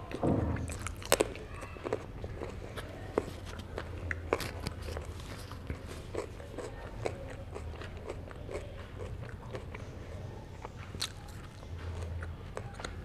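Close-miked eating of herring: biting and chewing, with a stream of sharp, small crunches and clicks. The loudest bites come in the first second or so.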